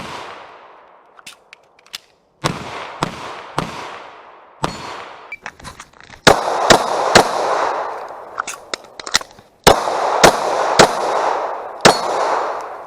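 Semi-automatic 9mm pistol firing about a dozen shots, mostly in quick strings of three about half a second apart, each shot trailing off in a long echoing decay.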